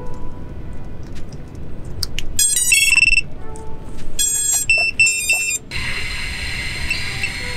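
Diatone Roma F5 quadcopter's motors playing the ESC startup tones after the battery is plugged in: a quick run of stepped beeps, then a second group of beeps. About two-thirds of the way in, the motors spin up to a steady idle whine with a hiss, as the quad is armed.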